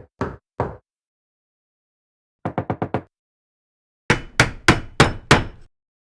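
Knocking and hammering sound effects: two knocks, then a quick run of about five light taps about two and a half seconds in, then six louder blows evenly spaced, roughly three a second. Dead silence lies between the groups.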